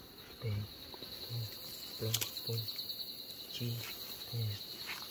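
Insects trilling steadily in a high, pulsing drone, with a short low sound repeating roughly once a second and a sharp click about two seconds in.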